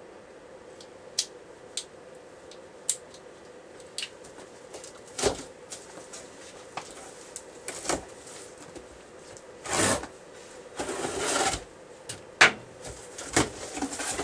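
A Leatherman multi-tool clicking as it is unfolded, a few sharp clicks in the first four seconds. Then packing tape is slit on a cardboard box and the flaps are pulled open: scraping, rustling cardboard, with a loud knock near the end.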